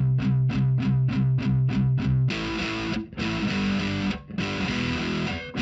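Rock outro music: a distorted electric guitar plays short palm-muted chugs, about four a second. A little over two seconds in it changes to held, ringing chords, broken by brief gaps twice.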